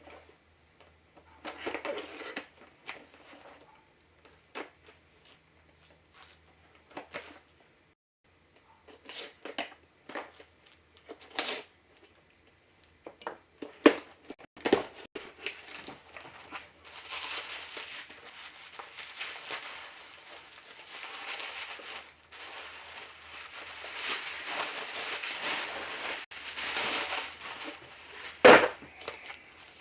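Packaging being handled as a replacement laptop display is unboxed: scattered rustles and knocks, then a long stretch of plastic and cardboard crinkling and rustling, with one sharp knock near the end.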